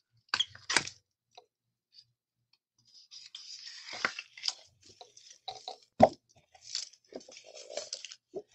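Clear cellophane sleeve around a pack of specialty paper crinkling and crackling as hands work the paper inside it: a short burst of crackling at the start, then steadier crinkling from about three seconds in.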